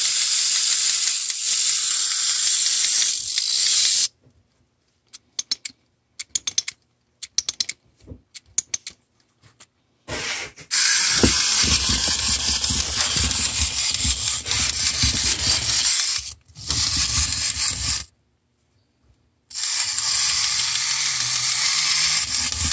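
Clockwork spring motor of a vintage Japanese wind-up tin toy dog whirring, then a run of separate ratchet clicks for about six seconds as the key is wound. The motor then runs again with low knocking as the toy works on a table, cutting out twice briefly before starting again.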